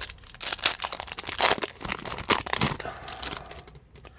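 Foil wrapper of a hockey card pack being torn open and crinkled, a quick run of irregular crackles that dies down near the end.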